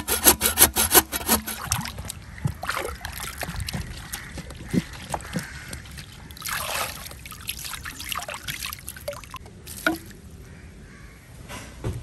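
A hand saw cutting through bamboo in quick, even strokes for about the first second. Then water splashing and trickling as a bamboo tube is rubbed and washed by hand in a basin of water, with a louder splash about halfway through.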